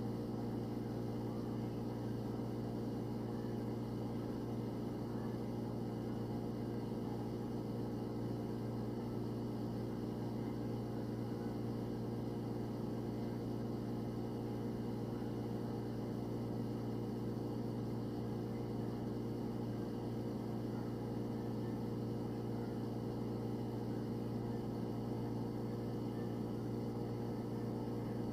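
Refrigerator hum heard from inside the closed fridge: a steady, unchanging electrical and mechanical drone with a strong low tone and many higher steady tones above it.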